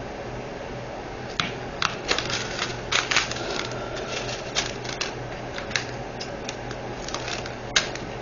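Irregular sharp plastic clicks and light rattles from small snap-lid plastic containers for diamond-painting drills being handled and pried open.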